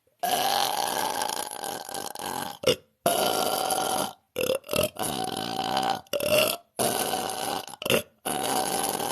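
A woman burping over and over in a nonstop string of long, drawn-out belches, each lasting a second or more, with a few short burps in between.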